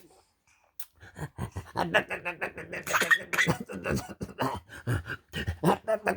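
A run of short, rapid coughs and throat noises from a man and a baby, starting about a second in, the baby copying her father's cough.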